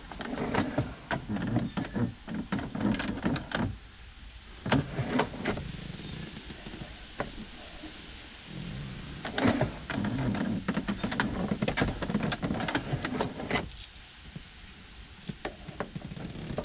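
Glove box door latch and lock of an Oldsmobile 442 being worked by hand: two spells of clicks, knocks and rattles, with keys jingling, as the newly fitted latch fails to catch with a click.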